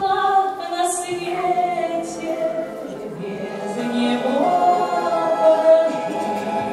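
A woman singing a slow song into a microphone, accompanied by a Russian folk-instrument orchestra of domras, balalaikas and bayan. About halfway through she slides up into one long held note.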